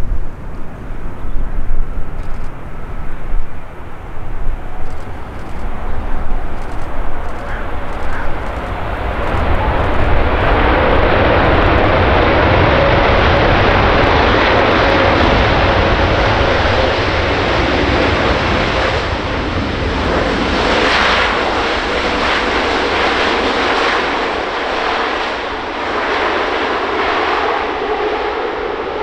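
Airbus A380 jet engines during landing: a low, uneven rumble that swells about ten seconds in into a loud, steady jet roar with a droning tone.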